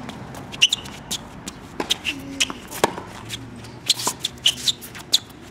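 Tennis rally on a hard court: sharp, irregular pops of the ball coming off racket strings and bouncing on the court, with sneakers shuffling and scuffing on the court surface between shots.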